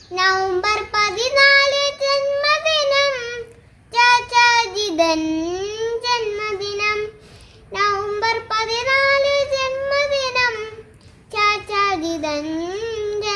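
A young boy singing solo and unaccompanied: four sung phrases with held, bending notes and short breaks between them.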